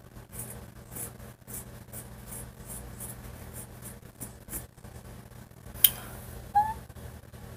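Scissors snipping through denim, about two cuts a second, until about four and a half seconds in. Near the end, a sharp click and then a brief squeak.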